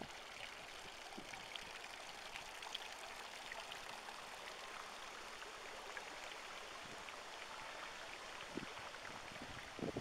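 Garden fountain's water falling and splashing into its stone basin: a faint, steady hiss of water.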